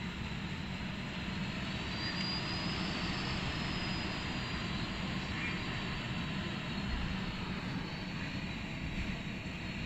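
Heavy rain pouring onto a tiled balcony floor and railing, a steady, even hiss.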